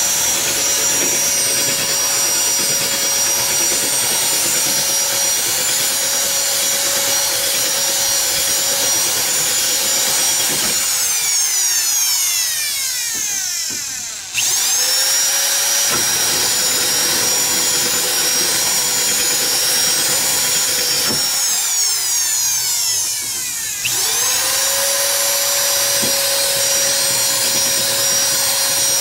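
Electric drill running at steady speed while drilling screw holes in a fiberglass fender; twice it is released and spins down with a falling whine, then starts again at full speed.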